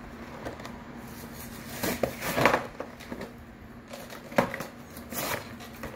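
A Hot Wheels monster truck toy's cardboard box with a plastic window being handled and pried open by hand: irregular short noises, loudest about two seconds in, with a sharp click at about four and a half seconds.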